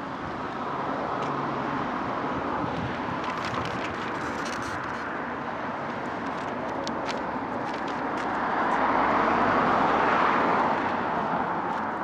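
A car passing by: its tyre and road noise builds to its loudest about nine to ten seconds in, then fades, over a steady outdoor background hum.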